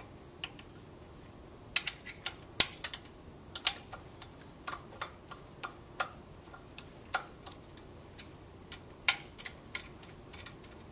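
A T-handle hex key turning screws down into a metal fixture block, clicking and ticking against the screw heads and metal as it is worked and repositioned: a run of irregular sharp metal clicks, the loudest a couple of seconds in.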